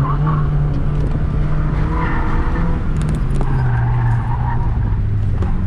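Honda Fit's four-cylinder engine pulling steadily under load while its all-season tires squeal through corners, with two stretches of squeal, about two seconds in and again around four seconds.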